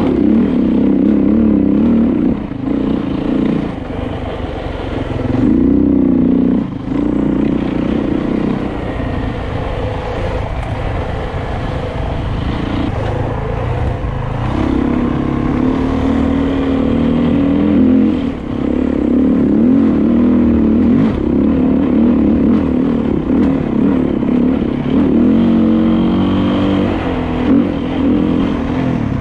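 Dirt bike engine pulling along a dirt trail, the revs rising and falling with the throttle and easing off briefly several times, with chassis and trail clatter underneath.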